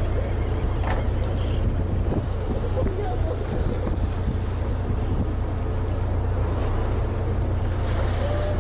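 Steady low rumble of a small fishing boat's engine with wind buffeting the microphone and the sea washing by.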